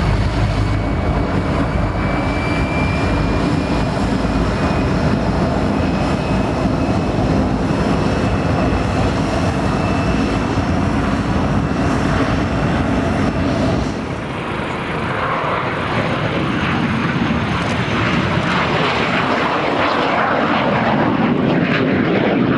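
MiG-15 UTI jet trainer's turbojet at takeoff power: a loud, steady jet roar with a faint whine rising slowly in pitch, changing about fourteen seconds in to a harsher, higher rushing noise as the jet lifts off and climbs away.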